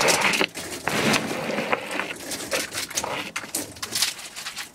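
Oyster shells clattering and scraping on a wooden table as they are sorted by hand, in irregular bursts of knocks and rattles.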